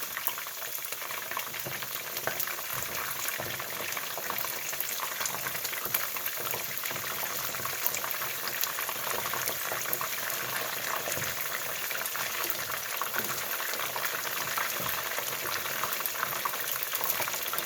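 Battered chicken pieces deep-frying in hot oil in a skillet: a steady sizzle with constant crackling and occasional sharper pops. This is the first fry of the batch.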